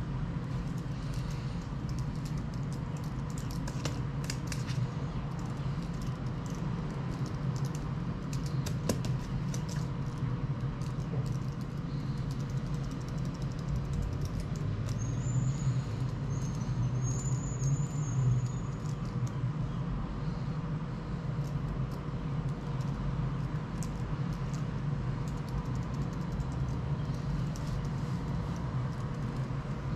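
Steady low background hum, with light ticks and scratches of a ballpoint pen on notebook paper during the first ten seconds or so, and a short high chirp about halfway through.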